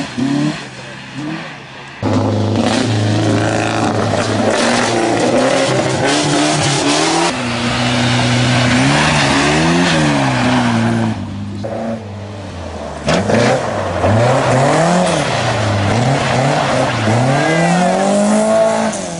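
Rally car engines revving hard as cars pass one after another, pitch climbing and dropping repeatedly through gear changes and lifts, over the hiss of tyres and loose gravel. Sharp changes about two seconds in and near the middle.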